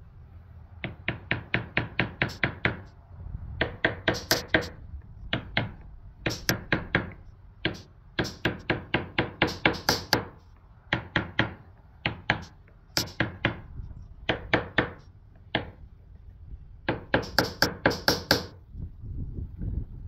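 Hand wire brush scrubbing a truck battery's positive terminal clamp clean: quick back-and-forth strokes, about five a second, in bursts of a second or two with short pauses between.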